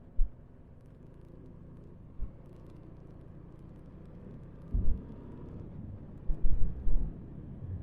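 Motorcycle engine running with a steady low rumble under way, picked up by an action camera's microphone, with several short, loud wind thumps on the microphone, most of them in the second half.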